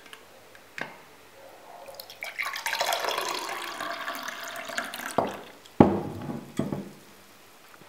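Detox water with cucumber and lemon slices pouring from a plastic pitcher into a glass, followed by a few sharp knocks.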